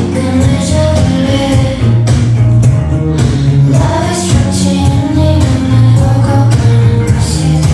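Pop music with a heavy bass line and a steady beat; the sung vocals of the track are faint or absent here.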